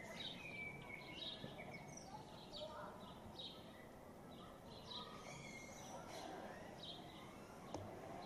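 Faint outdoor background of small birds chirping: a run of short, high chirps, about two a second, over a low hiss.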